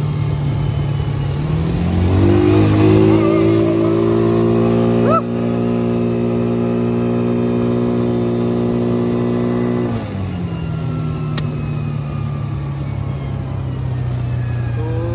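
Quad bike (ATV) engine running: it revs up about two seconds in, holds a steady higher pitch for about eight seconds, then drops back to a lower, steady running speed.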